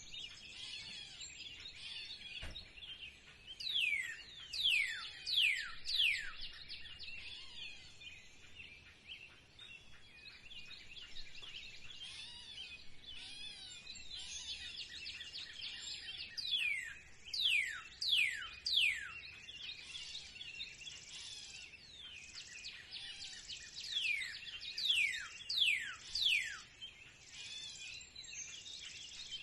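Spring birdsong chorus: a steady twittering of many birds, over which one bird sings three times a phrase of four or five loud whistles, each falling steeply in pitch.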